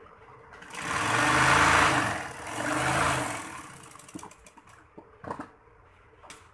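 Sewing machine running in two short bursts of stitching through fabric, each about a second and a half long, followed by a few light clicks.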